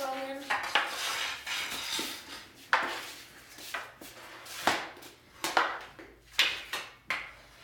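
Hockey sticks hitting a small plastic hockey ball, with sharp clacks of stick on ball and of stick blades knocking the floor, about ten hits at irregular intervals.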